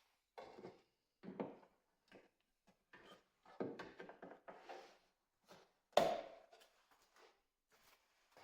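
Irregular handling noises: light knocks, scrapes and rustles of small objects being moved, with one sharper knock about six seconds in.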